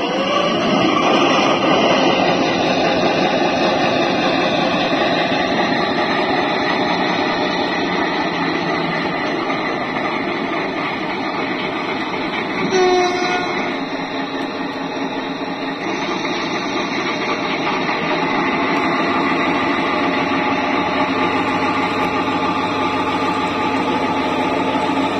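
Diesel locomotive sound from a sound-equipped H0 scale model of the V 60 (BR 106) shunter: the engine runs steadily after rising in the first second or so, with a short two-tone horn blast about 13 seconds in.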